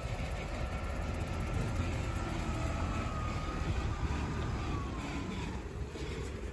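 Small compactor garbage truck's diesel engine running as it drives slowly past, a steady low rumble. A faint thin tone wavers and drifts slowly lower until about five seconds in.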